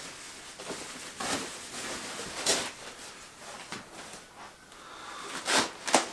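Brushing swishes and rustles of packaging being handled as a guitar is unwrapped, a few scattered strokes with the two loudest close together near the end.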